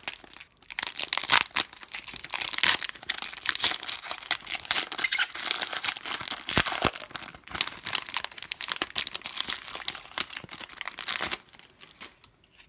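Plastic foil wrapper of a Panini Contenders trading-card pack crinkling as it is worked open and crumpled by hand. It is a dense, crackly rustle that stops about a second before the end.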